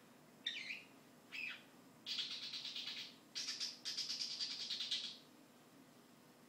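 Pet bird calling: two short chirps, then a fast, pulsing chattering warble lasting about three seconds, with a brief break in the middle, that stops about five seconds in.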